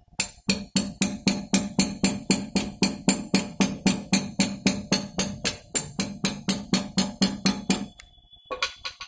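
Hammer tapping on a bicycle wheel's axle at the hub, a quick even run of about four knocks a second with a short metallic ring, driving the Teflon-taped axle into place. The knocking stops about eight seconds in.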